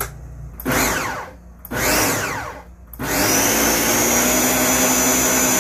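Countertop blender blending a papaya smoothie. The motor is pulsed twice in short bursts, each whine falling away as it coasts down, then runs at full speed steadily from about three seconds in, with a steady high whine over the churning.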